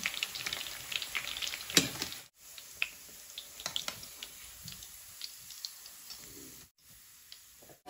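Battered pork pieces deep-frying in hot oil, a steady sizzle with scattered pops and crackles and a sharper click a little under two seconds in. The sizzle turns quieter after about two seconds and dies away near the end.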